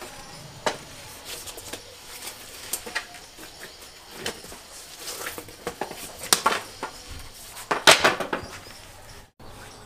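A live snakehead fish flopping and slapping on a wet concrete floor, tangled in a nylon hand net, with the net rustling: irregular wet slaps, the loudest flurry about eight seconds in.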